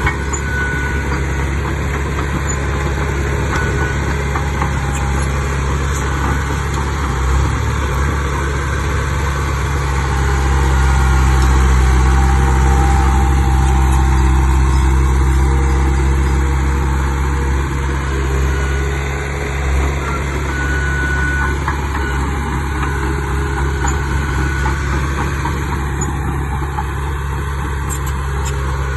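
Heavy diesel earthmoving machinery running steadily with a deep engine drone, growing louder for several seconds about midway before settling back.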